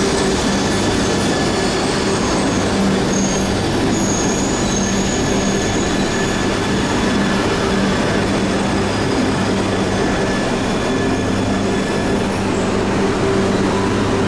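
E3 series shinkansen rolling slowly into the platform as it pulls in to stop, a steady rumble of wheels with a low hum underneath. A faint high whine comes in about three to five seconds in.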